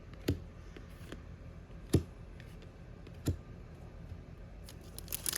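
Trading cards being handled and flipped by hand: faint ticks and three sharper clicks of card edges, the loudest about two seconds in.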